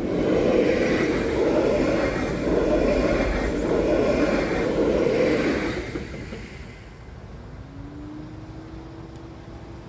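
Electric multiple-unit passenger train passing close by, its wheels running over the rails with a rumble that swells and dips as the bogies go past, then dies away about six seconds in. Near the end a low steady hum rises briefly in pitch and then holds.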